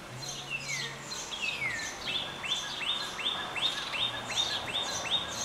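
Wild birds singing: two whistled notes falling in pitch, then a run of about nine quick repeated notes at roughly three a second, with higher chirps from other birds throughout.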